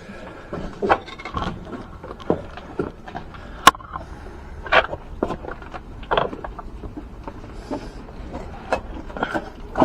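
Irregular knocks, clicks and scrapes of a person clambering through a window frame, with one sharp crack about a third of the way in.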